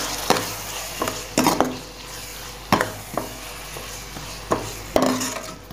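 Metal spoon stirring and scraping in a metal pot, with irregular knocks against the pot, over the sizzle of onion-tomato masala frying in oil with freshly added ground spices.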